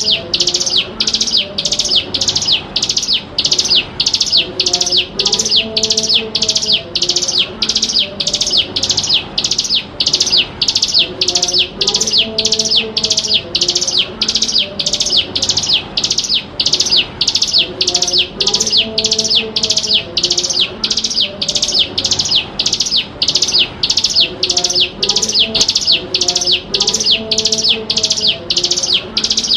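Ciblek gunung (a prinia) calling: an unbroken, even run of high, sharp chirps, about two to three a second. Underneath, a fainter lower tonal phrase comes back roughly every six seconds.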